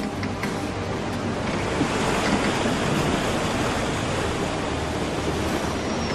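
Rough sea washing and breaking along a ship's hull with wind blowing, a steady dense rush that swells a little about two seconds in.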